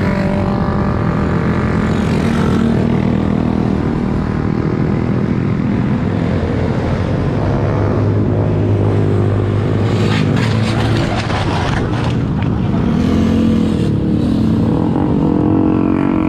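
Motor vehicle engines running on the road, one bending up and down in pitch as it passes, over a steady low rush of noise.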